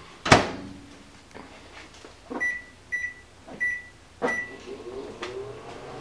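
Microwave oven door shut with a clunk, then four short keypad beeps about half a second apart as the buttons are pressed, and the microwave starts running with a steady hum.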